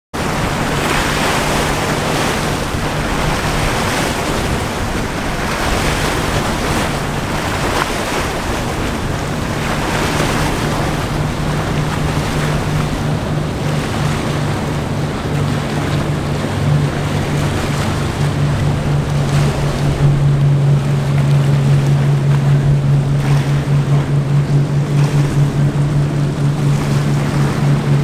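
Choppy water and wind on the microphone, with the steady low drone of a sportfishing boat's engines running at speed, growing louder about two-thirds of the way in as the boat comes closer.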